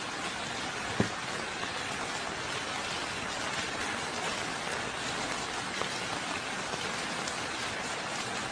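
A steady, even hiss with the texture of rain, with a faint click about a second in.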